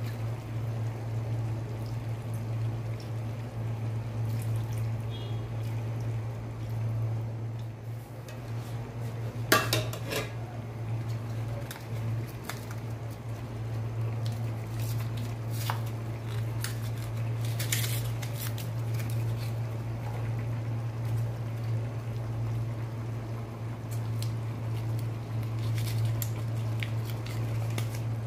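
A metal spoon knocks and scrapes now and then against an aluminium cooking pot, with a cluster of clinks about ten seconds in. A steady low hum runs underneath.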